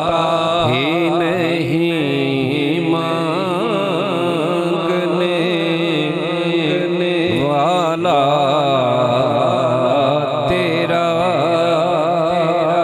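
A singer's voice holding long, wavering melismatic runs of a devotional naat melody without clear words, over a steady sustained accompaniment.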